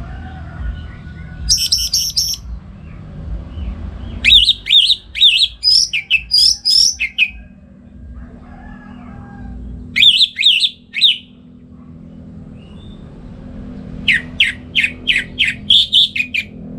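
Orange-headed thrush singing in full song: four bursts of quick, varied whistled notes, the longest about three seconds, with pauses of a few seconds between them. A steady low hum lies underneath.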